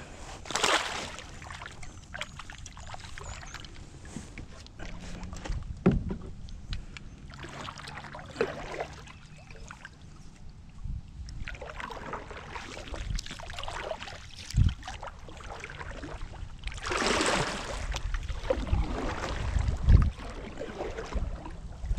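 Kayak paddling: the paddle blade swishing through the water and dripping, with the longest, loudest swish about seventeen seconds in. Two sharp knocks on the kayak, about six seconds in and near the middle.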